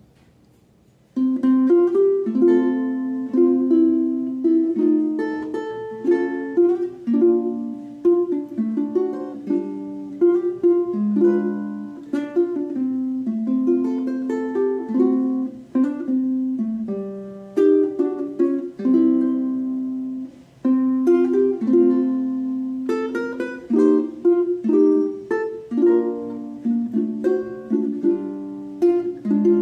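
Maestro Island Series UT-MR SB G ukulele played fingerstyle, unamplified: jazz-flavoured chords and melody plucked, starting about a second in, with a brief pause about twenty seconds in.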